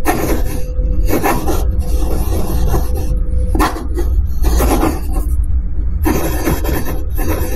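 Pen nib scratching across paper in a run of quick strokes with short gaps, as a signature is written, over a low steady rumble.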